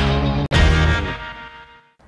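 Background music: a chord sounds about half a second in and fades away to near silence by the end.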